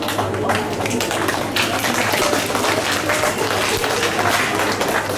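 An audience clapping steadily, many hands at once, over a steady low hum.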